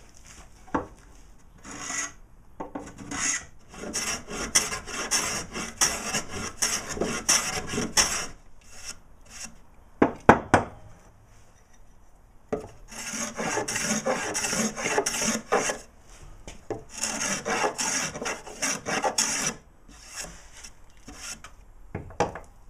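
Hand plane shaving the end grain of a softwood board in quick scraping strokes, in three runs with pauses between. A few sharp knocks come about ten seconds in.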